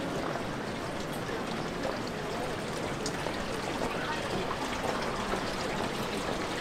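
Steady wash of running water, with faint voices in the background.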